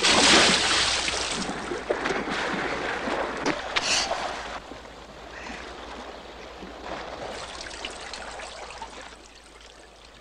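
Water splashing and running, loudest at the start with another splash about four seconds in, then fading away.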